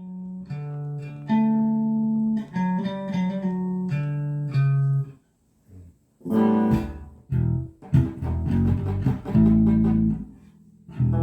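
G&L CLF Doheny V12 12-string electric guitar being played: picked notes and short phrases, a brief silence about five seconds in, then strummed chords.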